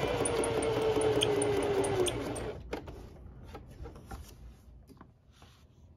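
Electric sewing machine running unthreaded, its needle punching through a paper practice sheet with a steady motor whine and quick regular ticking. It stops about two seconds in. Faint rustles and clicks of the paper sheet being handled follow.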